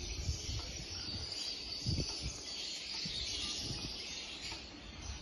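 A steady, dense high chatter of many caged lovebirds, with a few low bumps, the loudest about two seconds in.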